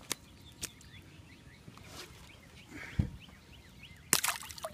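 A released bream splashes into the water near the end, after a few light knocks of handling on the wooden dock and a low thump about three seconds in. Faint bird chirps in the background.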